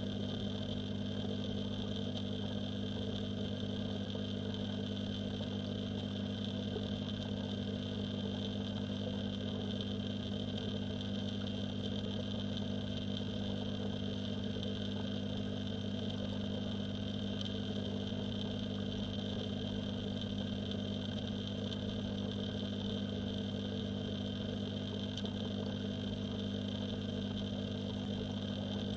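Steady electric hum of a submersible pond pump, heard underwater through a camera housing. It is a constant low drone that does not change.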